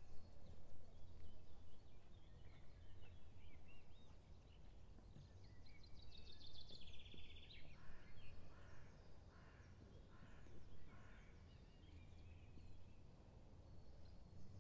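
Songbirds singing, with a fast trill falling in pitch about six seconds in, followed by a few short repeated calls. A low rumble runs underneath.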